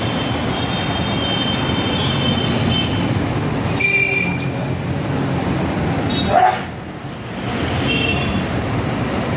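Street traffic noise in a congested market road: a steady din of vehicle engines, with a few short higher tones and a brief louder sound about six and a half seconds in.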